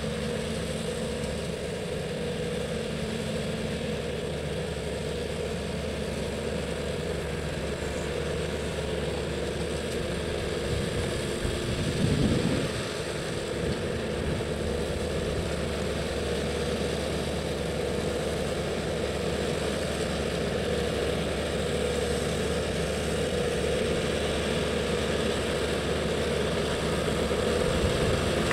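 Tractor engine running steadily while it drives a side-mounted olive lower-branch trimmer through the trees, with a brief louder swell about twelve seconds in.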